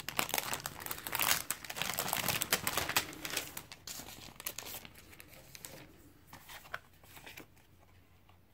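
Clear plastic packaging sleeve crinkling as it is handled and pulled off the contents. The crinkling is dense for the first few seconds, then thins to a few scattered crackles and dies away near the end.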